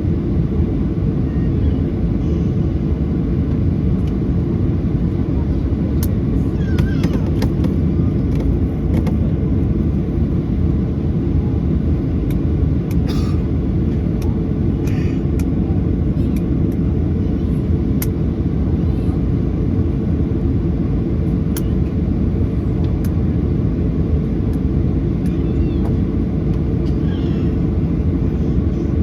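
Steady low rumble of a Boeing 737-800's CFM56-7B turbofan engines and airflow, heard inside the passenger cabin. A few faint short sounds rise briefly above it.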